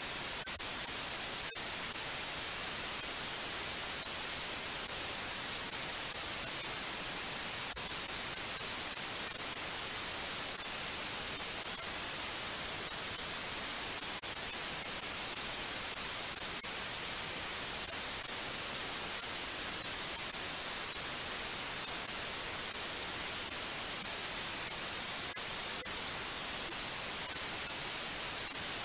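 Steady white noise: an even, unchanging hiss, brightest in the treble, with no variation in level.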